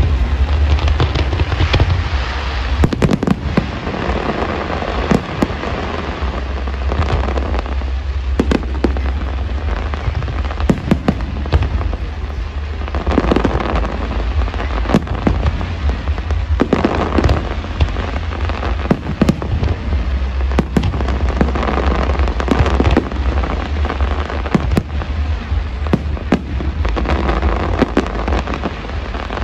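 Aerial fireworks display: a continuous barrage of sharp bangs and crackling shell bursts, many reports close together, over a deep rumble.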